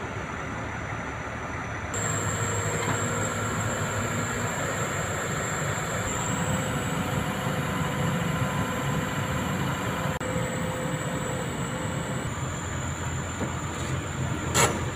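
Diesel engines of a Kobelco crawler excavator and a Fuso self-loader truck running steadily while the excavator is loaded onto the truck's tilted deck. A single sharp clank comes near the end.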